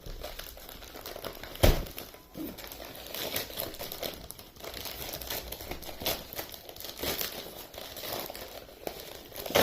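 Microphone retail packaging being opened by hand: continuous crinkling and rustling, with a sharp knock about 1.7 seconds in.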